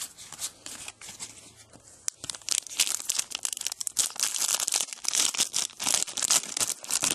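A trading-card pack wrapper being torn open and crinkled by hand. It is quiet handling at first, then loud, dense crackling from about two seconds in.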